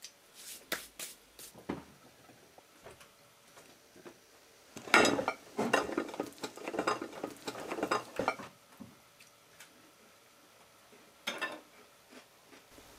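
Clinks and clatter of dishes, cutlery and glassware being handled on a table, in scattered bursts with a busy stretch about five to eight seconds in.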